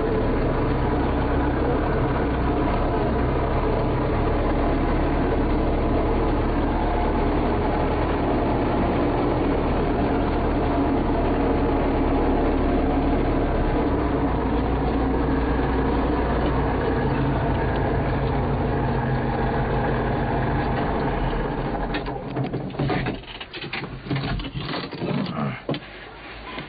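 A car engine running steadily while driving. About 22 seconds in the engine sound stops, leaving scattered knocks and rustling.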